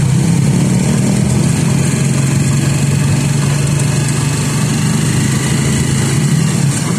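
Motor vehicle engine running steadily, a loud constant low hum that holds one pitch.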